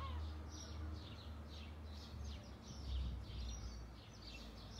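Garden birdsong: small birds giving rapid, repeated high chirps, several a second. A steady low rumble runs underneath.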